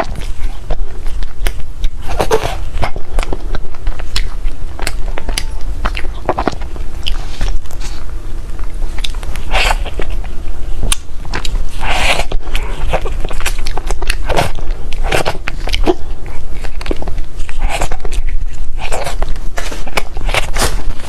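A person biting and chewing Korean cake close to the microphone: sharp mouth clicks and short chewing sounds at irregular intervals, over a steady low rumble.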